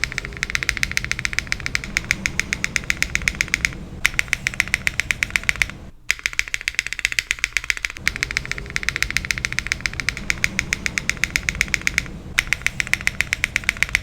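Spacebar of a mechanical keyboard with an ABS double-shot keycap, HMX Emo switches, a carbon-fibre plate and no foam, pressed rapidly over and over at about ten clicks a second. The clicking comes in several runs separated by brief pauses.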